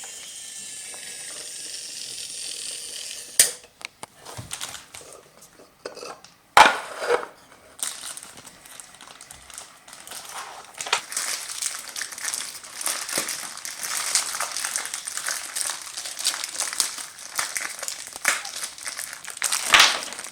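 Toy pieces and packaging being handled: crinkling and rustling with small clicks, and a couple of sharp knocks about three and six seconds in.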